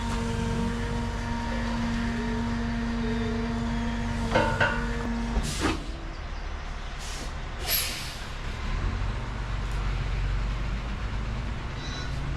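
Heavy truck working: a steady engine whine that stops about five and a half seconds in, then several short, sharp air-brake hisses, and near the end a reversing alarm begins beeping.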